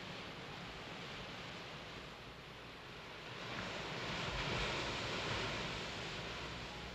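Seaside ambience: a steady hiss of surf and wind, swelling louder for a couple of seconds about four seconds in.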